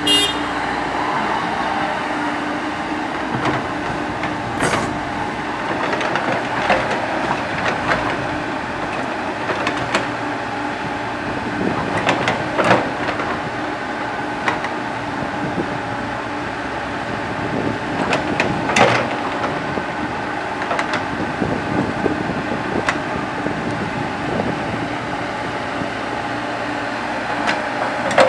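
Komatsu PC70 hydraulic excavator's diesel engine running steadily at working revs, with short metallic clanks and knocks from the bucket and arm every few seconds as it digs and loads soil.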